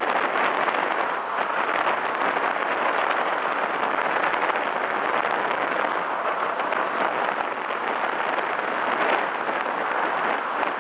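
Steady rushing noise of a jet boat under way on a river: wind and water spray washing over the boat, with no distinct engine note standing out.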